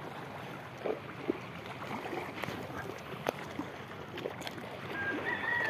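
Shallow sea water lapping against rocks, a steady wash, with a few light clicks. A faint, thin high tone comes in near the end.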